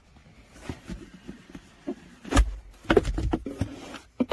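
Handling sounds of items being taken out of and set down from a product box: a few light clicks, a sharp knock about two and a half seconds in, then a quick cluster of smaller knocks and rattles.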